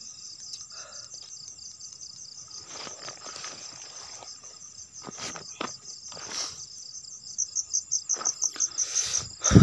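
Night insects chirping steadily in a high trill, with a loud, rapidly pulsing chirp of several beats a second joining from about seven seconds in. A few short rustles and a dull thud near the end.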